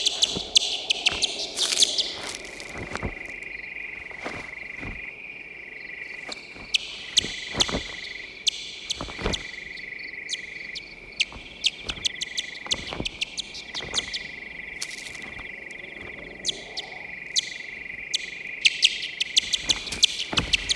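Big brown bat echolocation calls, brought down into hearing range, heard as a string of short chirps at uneven intervals over a steady high tone. The chirps come faster and closer together near the end as the bat homes in on its prey.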